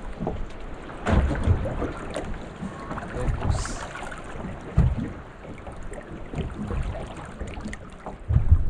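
Wind buffeting the microphone and water lapping against a small boat's hull, in irregular gusts with a few small clicks, and a stronger gust near the end.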